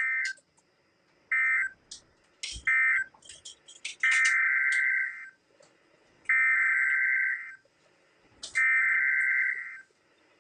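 Weather radio digital alert-code bursts: three short electronic bursts, then three longer ones of about a second each. They mark the end of one warning message and the coded header of the next tornado warning.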